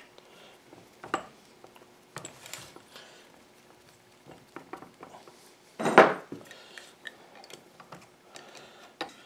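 Scattered metal clicks and clinks as a small Wilton bench vise is handled and fitted onto a PanaVise swivel mount, with one louder clank about six seconds in.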